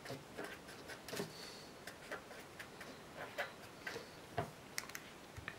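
Felt-tip marker writing on paper: faint, irregular taps and scratches of the tip as letters are formed, a few per second, with one firmer tap near the end.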